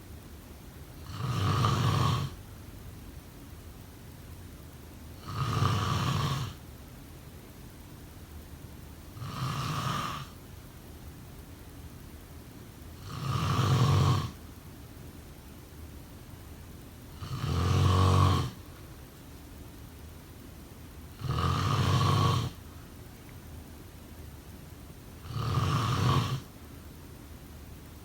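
A sleeping person snoring: seven snores about four seconds apart, each lasting about a second.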